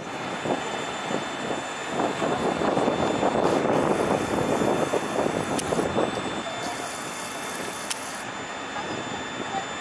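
Jet aircraft engine noise at an airport: a steady rushing that swells for a few seconds and then eases back, with a couple of faint sharp ticks.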